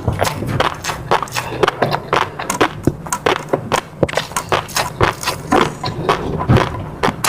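Close-miked eating sounds of a person chewing, with many quick, irregular wet clicks and smacks several times a second.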